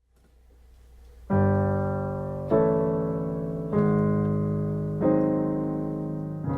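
Digital piano playing a slow sequence of sustained block chords, one struck about every second and a quarter, each ringing and fading into the next; the first chord comes about a second in.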